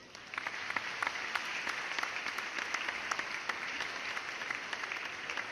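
Applause: many hands clapping steadily, a dense patter of claps that starts abruptly and holds at an even level.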